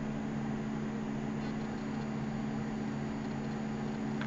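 A steady low hum with an even hiss behind it, unchanging throughout.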